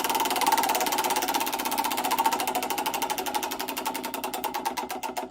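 Mercedes-Benz CLK GTR's V12 engine running in a fast, even pulsing that slows steadily, the beats spreading further apart and fading as the revs drop.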